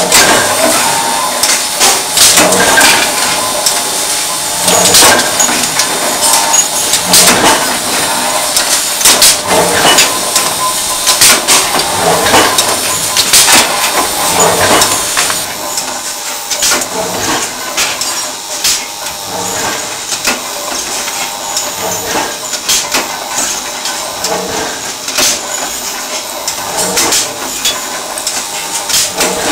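Steel billets clanking and knocking as they are fed through an induction billet heater and drop down its chute: irregular sharp metallic knocks every second or two over a steady machine hum with a faint high whine. The knocks are loudest in the first half and ease off about halfway through.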